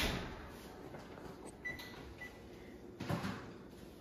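Oven door shut with a knock, then two short electronic beeps from the range's control panel about a second and a half and two seconds in. About three seconds in comes a clatter as the oven is opened and the rack with the baking dish is pulled out.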